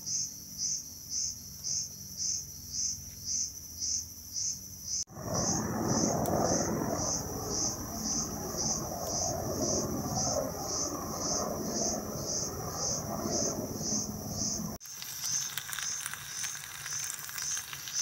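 An insect chirping in a steady, even rhythm, about two or three high chirps a second. From about five seconds in until nearly fifteen, a louder rush of wind noise on the microphone covers it, starting and stopping abruptly.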